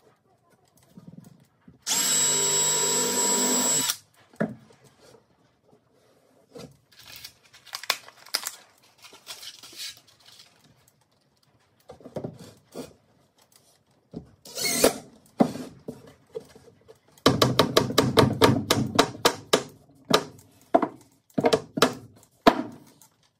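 Milwaukee M12 cordless drill running in one steady burst of about two seconds, a couple of seconds in, then scattered knocks of wood being handled. Later comes a rapid string of knocks for about three seconds as a screw is driven into the plywood, followed by a few shorter bursts near the end.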